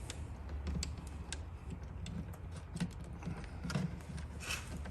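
Scattered light clicks and taps of hands working stiff electrical wire and a hand tool into the wall connector, irregular and a few a second, over a steady low hum.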